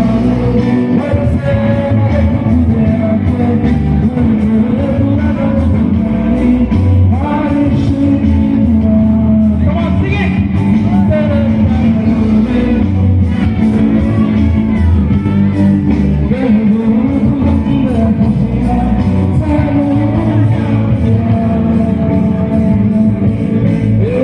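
Live rock band playing through a PA with a male singer: electric guitars and keyboard over a steady drum beat, the vocal line carrying a melody throughout.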